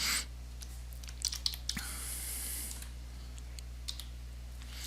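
Keys typed on a computer keyboard: a quick run of keystrokes about a second in, then a few scattered clicks, over a low steady hum.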